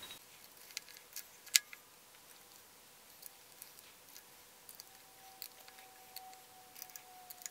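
Scattered small metallic clicks and taps from an Allen key working the bolts of a milling machine's power drawbar mounting plate, with one sharper click about a second and a half in.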